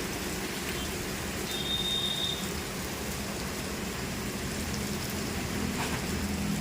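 Steady rain falling, a constant even hiss, with a brief faint high tone about a second and a half in.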